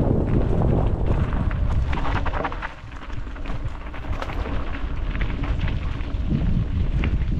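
Mountain bike rolling fast over a rough dirt trail: wind rumbling on the action camera's microphone, with tyres crunching and the bike rattling and clicking over bumps. The rumble drops briefly about three seconds in.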